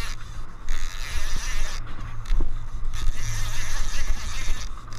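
Boat engine running steadily at a low hum, with a rushing hiss of wind and water that swells and fades several times.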